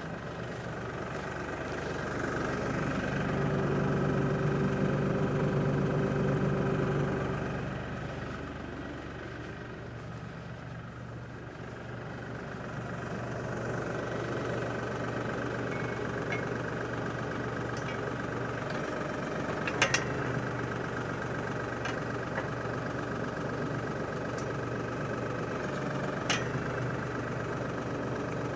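Diesel engine of an LS compact tractor idling steadily, louder with a steady whine for a few seconds about two seconds in before settling back. A few sharp clicks come near the end.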